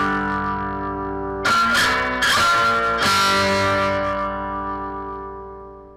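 Guitar music: chords struck a few times and left ringing, then fading out near the end.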